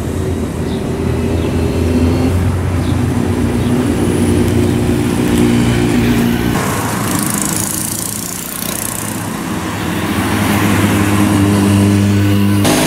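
Motorcycle engines running at low, steady revs as bikes ride slowly past close by, the first up to about six seconds in. The sound dips briefly, then swells again as a second motorcycle comes past near the end.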